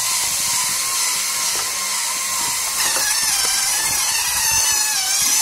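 LEGO Mindstorms NXT robot's geared servo drive motors whining steadily as it drives, the pitch wavering and shifting about three seconds in.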